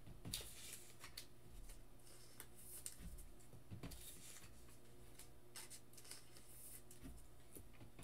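Faint rustling and soft ticks of baseball trading cards being slid and flipped through by hand on a tabletop, over a low steady hum.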